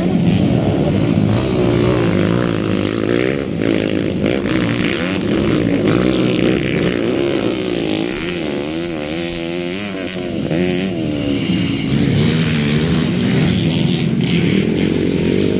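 Several motocross dirt bike engines revving as the bikes race round the track, their pitch rising and falling with the throttle. About halfway through, the engine pitch warbles quickly up and down.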